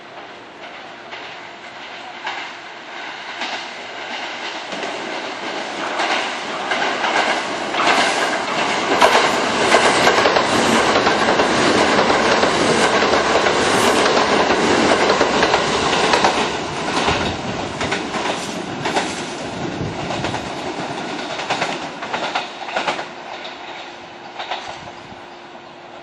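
Electric commuter train passing through the station at speed without stopping, its wheels clattering rhythmically over the rail joints. The sound builds to its loudest about halfway through, then fades as the train moves away.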